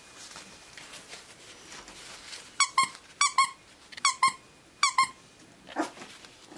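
A squeaky dog toy is squeezed and released four times in quick succession a couple of seconds in, each time giving a pair of short, high squeaks.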